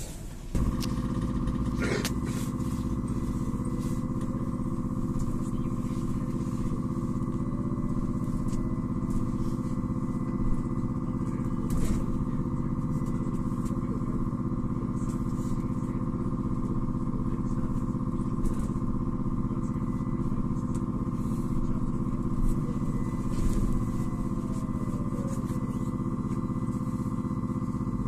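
Cabin sound of a LAZ E301D1 trolleybus under way: a steady hum with several constant tones over low road rumble. A few brief knocks and rattles sound through it, at about two seconds and again near the middle.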